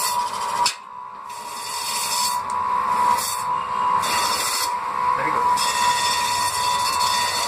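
Electric chicken cutting machine running with a steady whine, its blades cutting through raw chicken pieces fed into the hopper. The cutting comes as rasping noise in several spells that start and stop.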